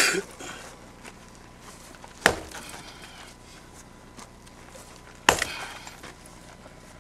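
Rock being struck and broken with a heavy long-handled hand tool: three sharp strikes about three seconds apart, each ringing briefly.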